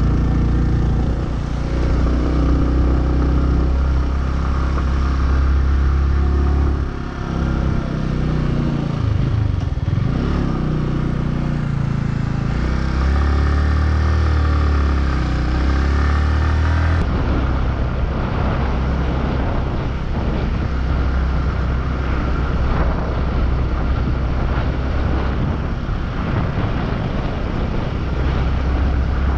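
Motorcycle engine running on the move, its pitch rising and falling with the throttle. About halfway through the sound changes abruptly to a steadier, noisier rush with the engine less distinct.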